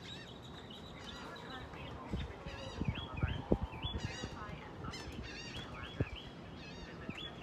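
Birds calling over and over in short chirping and whistled notes, with a few dull low thumps in the middle.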